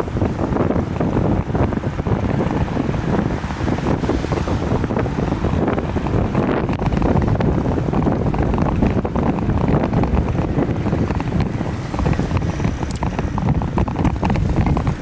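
Wind buffeting the microphone of a camera riding on a moving bicycle: a steady, loud, rough rumble.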